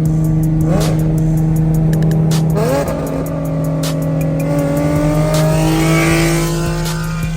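Nissan 370Z's VQ37VHR V6 on a full straight-pipe exhaust with no muffler or resonator, running loud: two quick rev blips, then a longer pull with the pitch climbing steadily for about four seconds before it drops off near the end.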